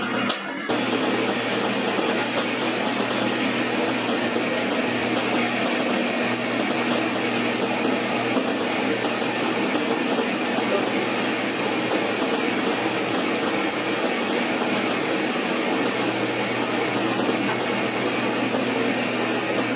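Sliding-table panel saw running steadily, its motor and spinning blade making a constant hum and whirr while it is not in a cut.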